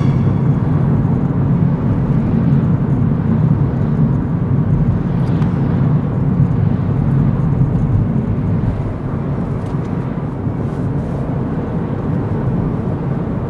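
Cabin noise inside a moving car: a steady low rumble of engine and tyres on the road at cruising speed, easing slightly a little past halfway.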